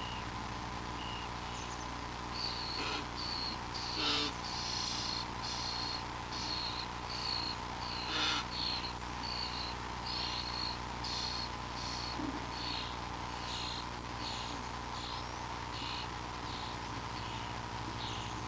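A small animal chirping: short high chirps repeated about twice a second, with two louder sharp clicks about four and eight seconds in, over a steady electrical hum.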